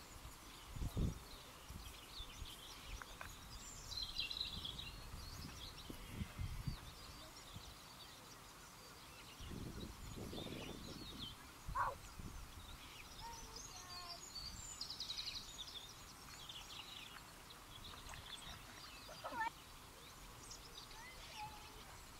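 Outdoor riverside ambience of small birds chirping and trilling on and off, with a few low thuds or gusts in between.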